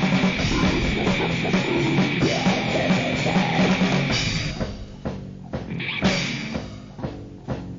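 Lo-fi grindcore/noise recording: a dense wall of distorted guitar, bass and drums that breaks off about halfway into scattered drum hits, with a short burst of the full band in between.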